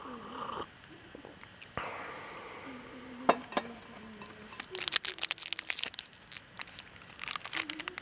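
Crinkly plastic snack wrapper crackling as it is handled, in two spells, one in the middle and one near the end, after a single sharp knock a little over three seconds in.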